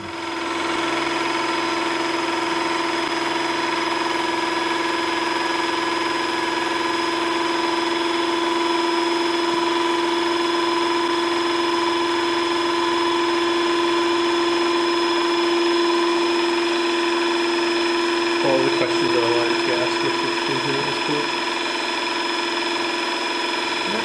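Power unit of a Fameca SPCCS140WI cable spiking and cutting tool, a motor-driven hydraulic pump, running with a steady, even whine.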